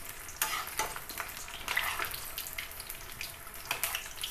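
Batter-coated banana pakoras deep-frying in a kadhai of hot oil on high flame: a steady sizzle with frequent sharp crackling pops.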